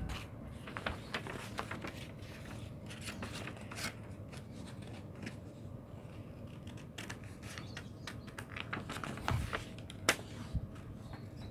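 Scissors snipping through a sheet of paper in short, irregular cuts, with the paper rustling as it is handled. One sharper click comes about ten seconds in.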